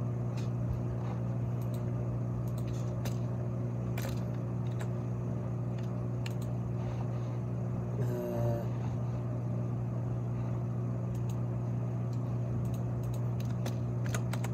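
Steady low hum with scattered sharp clicks of typing on a computer keyboard, and a brief low voiced sound about eight seconds in.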